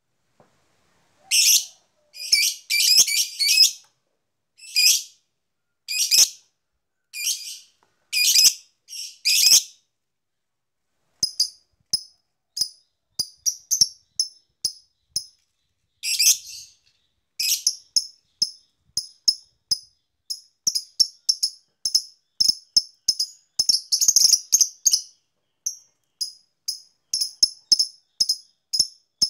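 Fischer's lovebird calling. First comes a string of harsh, rattly chattering bursts, each about half a second to a second long. From about a third of the way in it switches to a long run of short, sharp 'ngetik' chips at two or three a second, which bunch into a quick run for a moment past the middle. These are the typing-like calls that keepers play as bait to set other lovebirds singing.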